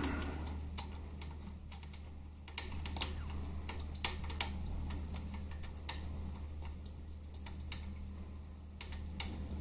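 Irregular light metallic clicks and ticks as a gearbox-to-engine mounting bolt is wound into its thread by hand, with a steady low hum beneath.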